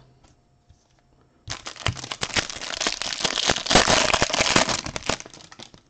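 Foil trading-card pack wrapper crinkling as it is torn open by hand, a dense crackle of small clicks starting about a second and a half in and lasting about four seconds.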